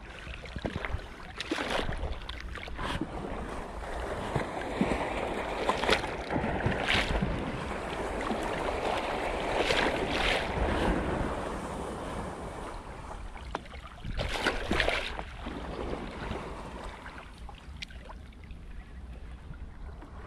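Sea waves washing and splashing just below, in swells that rise and fall, with a few louder surges around the middle and again about three-quarters through. Wind buffets the microphone with a low rumble underneath.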